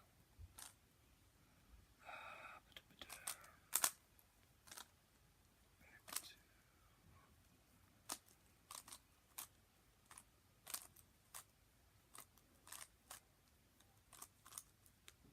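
Quiet, sharp plastic clicks of a speed cube's layers being turned, one at a time at an irregular pace of about one a second, with a short rustle about two seconds in.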